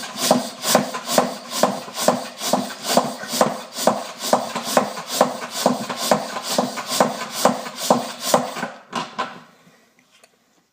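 Hand pump on a Liquivac oil extractor jug being worked fast and evenly, a little over two strokes a second, each stroke a rasping squeak; the pumping pressurizes the extraction jug before the oil is drawn out through the dipstick tube. The strokes fade and stop about nine seconds in.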